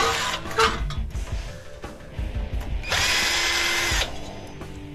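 Cordless drill running at a steady speed for about a second, backing a screw out of a water cooler's fan-motor mount. Before it come a few light clicks and knocks of metal parts being handled.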